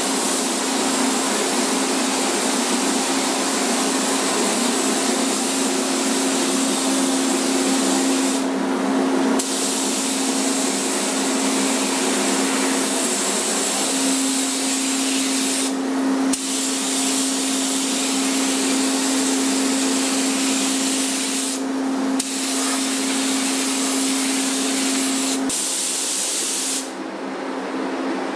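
Compressed-air paint spray gun hissing steadily as paint is sprayed onto the rocker panels, the hiss breaking off briefly a few times, longest near the end. A steady low hum runs underneath.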